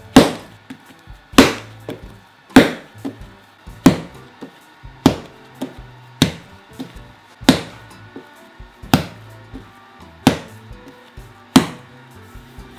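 Butter-enriched bread dough being slapped down hard onto a countertop and folded, about ten loud slaps a little over a second apart. This is slap-and-fold kneading to develop the gluten once the butter has been absorbed.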